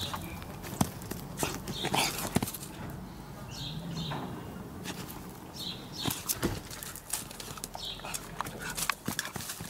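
Young cocker spaniel giving several short high-pitched whines, amid scuffling and sharp clicks on the dirt.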